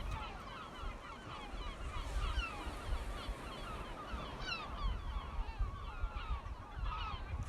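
A large flock of gulls calling constantly, many short falling cries overlapping, over a low rumble.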